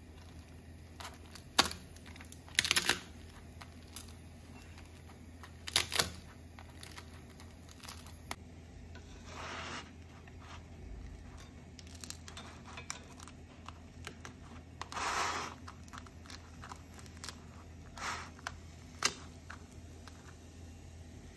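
Scattered crunches and crackles of tortilla chips inside a dosa as it is folded over and pressed flat on a griddle. The crackles come as a dozen or so short snaps with a couple of longer rustles, over a low steady hum.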